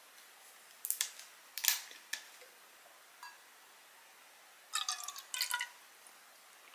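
Makgeolli poured from a plastic bottle into a thin aluminium makgeolli cup, glugging and splashing in a few short bursts about five seconds in. A couple of sharp clicks and taps from handling the bottle come earlier.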